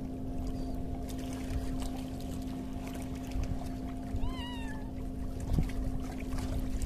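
Water lapping against shoreline rocks with low wind rumble and a steady low hum. A little past four seconds in comes one short, wavering, meow-like animal call, and a dull thump follows about a second later.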